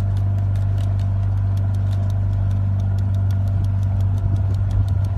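Motorboat engine running steadily with a low, even hum, a fast regular ticking over it.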